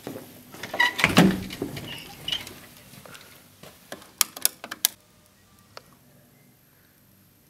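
Footsteps on a hard floor at the start, then a louder knock and clatter about a second in. About four seconds in comes a quick run of sharp clicks as a bank of wall light switches is flicked on.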